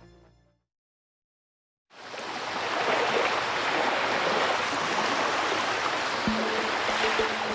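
Music fades out into a second of silence. Then a steady rushing, bubbling water sound effect comes in, the underwater ambience of a submersible's dive. Sustained music notes join it near the end.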